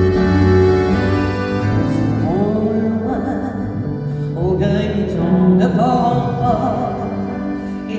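A woman singing a French chanson live with accordion accompaniment. Held accordion chords fill the first couple of seconds, then her voice enters with a wavering vibrato.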